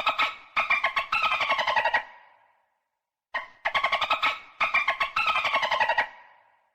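Dolphin chattering: rapid trains of clicking pulses with whistles that fall in pitch. The same call is heard twice, each time lasting about two and a half seconds, with a silent gap of about a second between them.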